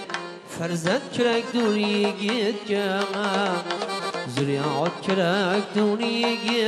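Turkic folk music: a wavering, ornamented melody over steady held notes, with a regular drum beat, between sung verses.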